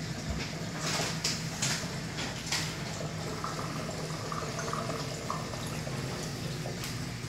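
Water running and splashing in a large reef aquarium's circulation and overflow, over a steady low pump hum, with a few short sharp noises between one and three seconds in.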